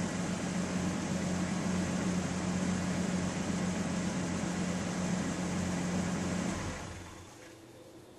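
A truck's engine idling steadily with a low hum, dying down about seven seconds in to a faint hiss.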